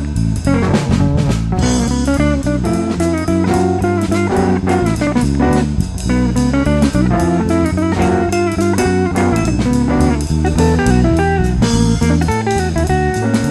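Background music: a band with guitar and drum kit playing an upbeat blues-jazz tune with a steady beat.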